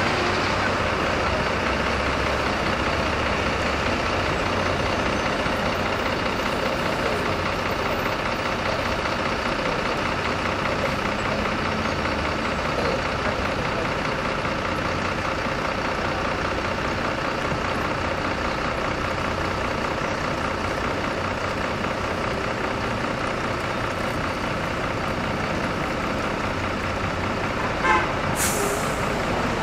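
Steady city-bus engine and street-traffic noise heard from the open top deck of a tour bus. Near the end comes a short sharp sound followed by a brief hiss, like a bus's air brakes.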